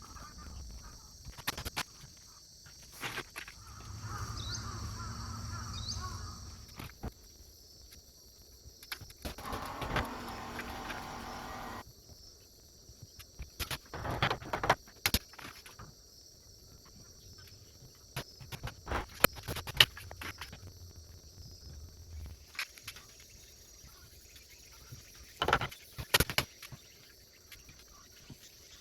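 Scattered knocks and clicks of oak pieces being handled and worked by hand, with two short stretches of a steady hum. Bird chirps and a steady high insect-like hiss sit behind them.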